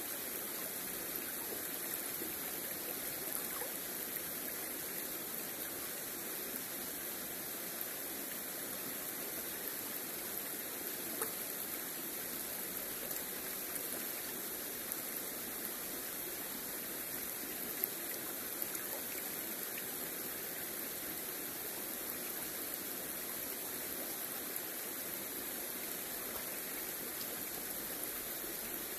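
Shallow river water running and rippling over stones, a steady rushing close to the microphone with a few brief ticks.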